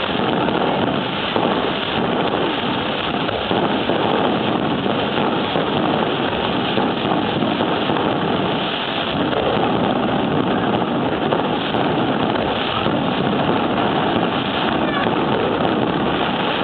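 Fireworks barrage: many bursts and crackles merging into a continuous loud din, with no pauses between them.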